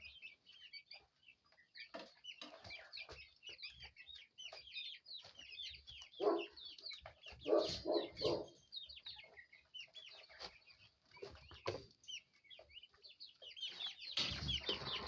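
A brood of young chicks peeping constantly in high, short chirps, with a run of louder, lower clucking calls from bigger birds about six to eight seconds in.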